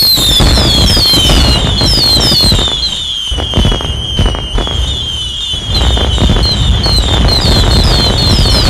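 A loud, dense pile-up of many overlapping copies of a sound effect. A high, falling chirp repeats about three times a second over a crackling, rumbling wall of noise.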